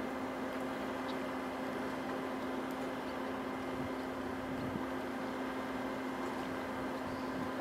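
Steady low hum with an even hiss, unchanging throughout; no bird calls.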